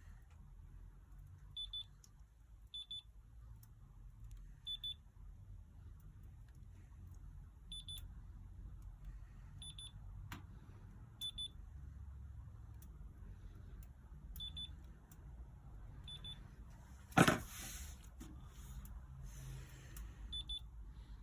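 Short, high electronic beeps from a small handheld device, repeating at irregular intervals of one to three seconds over a low rumble. A single loud sharp knock comes near the end.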